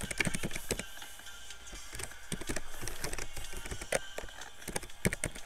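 Computer keyboard keys clicking in irregular bursts as text is typed, over background music.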